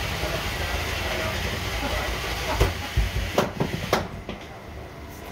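Antweight combat robots fighting: a steady whirring hiss from a spinning weapon and drive, then a quick run of five sharp clanks of metal hitting metal, about two and a half to four seconds in. After the clanks the whirr drops quieter.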